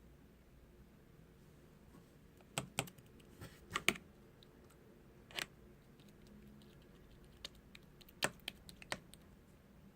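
Slime being handled, giving irregular sharp clicking pops, a cluster about three seconds in and another near the end.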